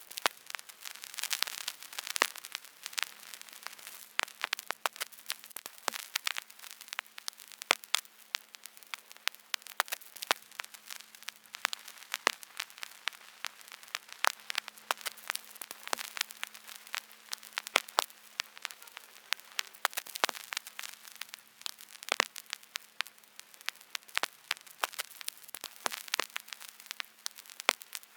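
Vinyl record surface noise: a steady hiss with dense, irregular crackles and pops, over a faint steady low hum.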